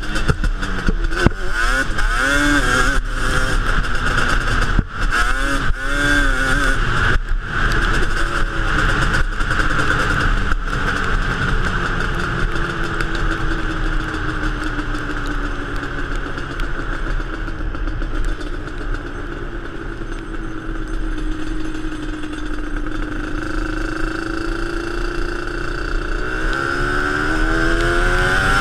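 Yamaha Banshee ATV's 350cc twin-cylinder two-stroke engine with Toomey T5 pipes, under way on a dirt road. For the first ten seconds or so it revs up and down repeatedly, with scattered clatters and knocks. It then runs at a steadier, lower pitch that sags slowly, and revs up again near the end.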